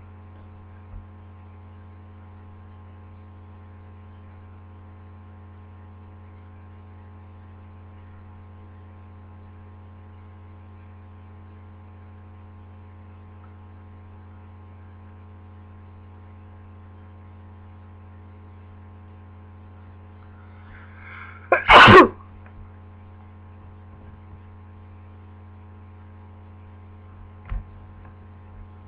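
One loud allergic sneeze, set off by lilies, about three quarters of the way in, after a short drawn-in breath, over a steady electrical hum.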